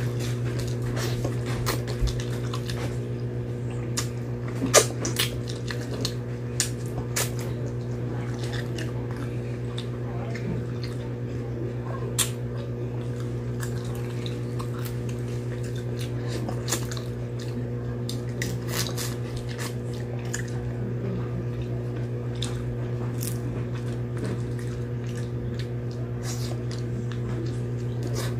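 Close-up eating sounds of a person eating with her hands: wet chewing, lip smacks and scattered sharp mouth clicks, with light crinkling as her fingers pick grilled tilapia from its banana leaf wrapping. A steady low hum runs underneath.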